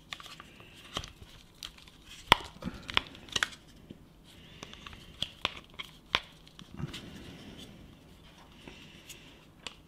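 Modular headphone parts being handled and fitted together: scattered clicks and knocks, the loudest a little over two seconds in, with light rustling between them.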